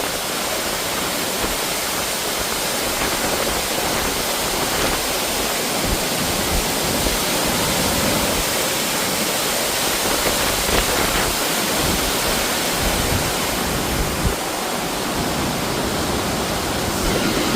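Waterfall rushing steadily: a constant, even roar of falling water.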